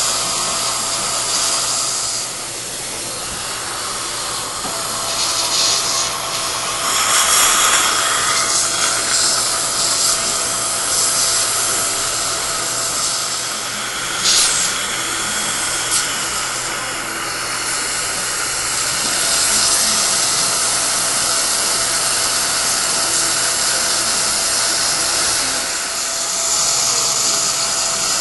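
Implant surgical handpiece drilling the osteotomy at slow speed and high torque, a steady motor whine over the hiss of copious water irrigation. The whine drops out for a couple of seconds early on, then resumes.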